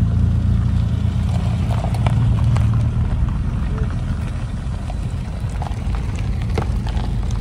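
Classic Mini cars' small four-cylinder engines running as the cars drive slowly past, low and steady, getting gradually quieter.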